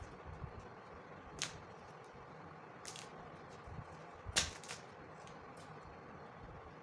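Kinetic sand being cut: a few short crisp crunches, the loudest a quick double one about four and a half seconds in, over a steady low hiss.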